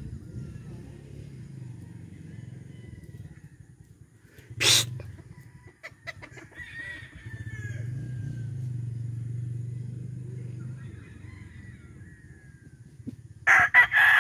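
Cowan Roundhead gamecock crowing loudly near the end. Before that there is a single sharp knock a few seconds in, faint chirps, and a steady low rumble.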